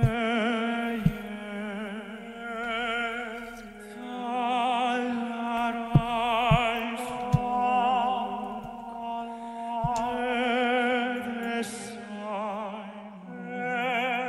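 Male classical-crossover vocal quartet singing a slow ballad in operatic style, the voices wavering with wide vibrato over a held low note. A few short clicks sound now and then.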